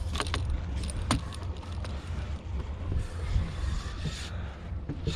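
Steady low rumble aboard a small fishing boat at sea, with a few sharp clicks near the start and about a second in.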